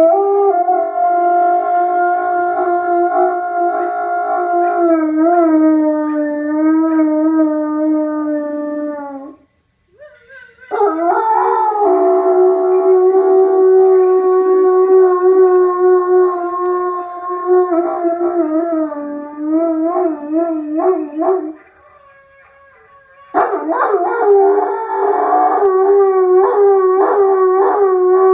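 Irish wolfhound howling while lying down: three long, drawn-out howls with short breaks for breath. The first sinks slowly in pitch, and the last wavers up and down.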